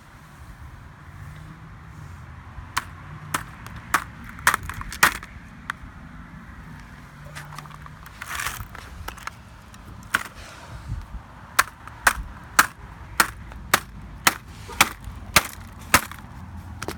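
Sharp knocks and clattering against a wrecked MacBook's casing and parts as it is broken apart. The knocks are scattered at first, then turn into a steady series of about two blows a second over the last five seconds.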